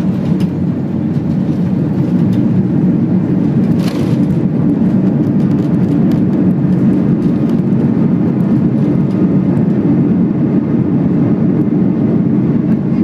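Loud, steady cabin rumble inside an Airbus A330-300 airliner during its landing: engine and airframe noise heard from a seat near the front of the cabin. There is a brief click about four seconds in.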